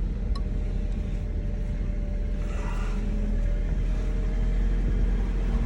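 1991 Acura Integra LS's 1.8-litre four-cylinder engine idling steadily.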